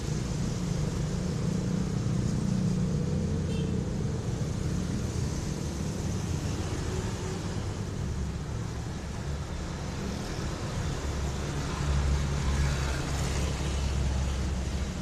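Steady low rumble of a motor vehicle with road noise, swelling slightly near the end.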